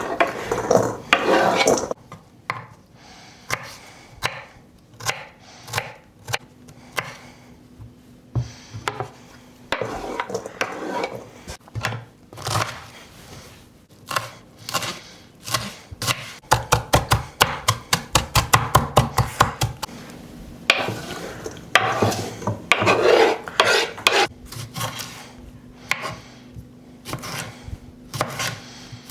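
Kitchen knife chopping salad vegetables on a chopping board. The cuts come irregularly, with a run of quick, even chops at about five a second past the middle.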